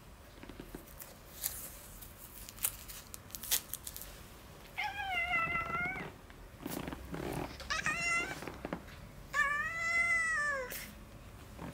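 Domestic cat meowing in protest three times at having its claws clipped, the last call the longest and falling in pitch at its end. A few short clicks come before the meows.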